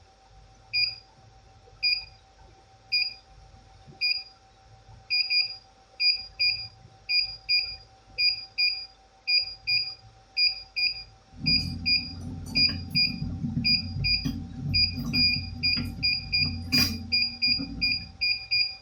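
BGA rework station beeping as its reflow heating profile nears the end, short high beeps about once a second that quicken to about two a second. About eleven seconds in a low rush of airflow comes in under the beeps, and a sharp click sounds near the end.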